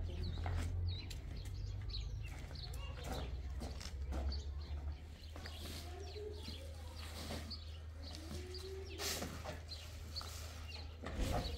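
Small birds chirping over and over, short high calls scattered through the whole stretch, above a steady low hum, with a few sharp knocks.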